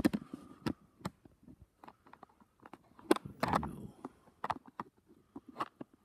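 Irregular footsteps and small clicks of someone walking on a concrete floor in a small room, with a louder knock and a brief scuff about three seconds in.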